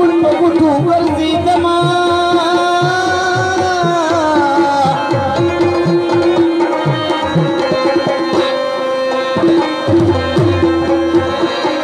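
Instrumental passage of a Pashto song played loud: a busy hand-drum rhythm whose low strokes slide down in pitch, under a held, wavering melody line.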